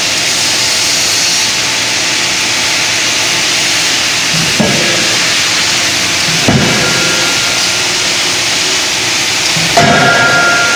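A 25 kJ CNC drop forging hammer striking a red-hot workpiece on the die three times: a blow a little under halfway in, another about two seconds later, and the loudest near the end, each ringing briefly. The blows land over a loud, steady hiss of running forge machinery.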